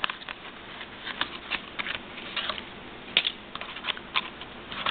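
Pokémon trading cards and stiff plastic blister packaging handled by hand as the cards are worked out of the pack: irregular light clicks and rustles.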